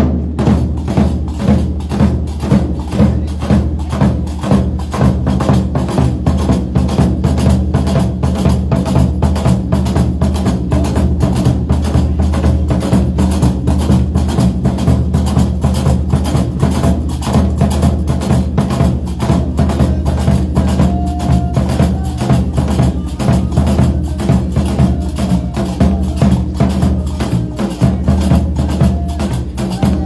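Percussion-led music: drums and hand percussion beat a fast, steady rhythm over a deep bass, cutting in suddenly.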